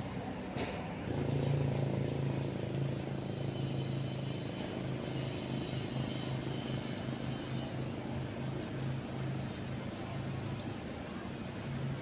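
A low, steady motor drone that pulses slightly, with a few faint, short high chirps in the second half.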